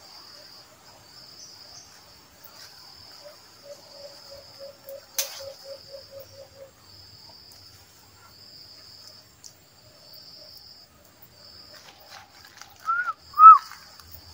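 Forest insects buzzing in a faint, high, pulsing drone. A few seconds in comes a run of about a dozen low, quick notes at roughly four a second. Near the end there are two loud, short chirps that rise and fall in pitch.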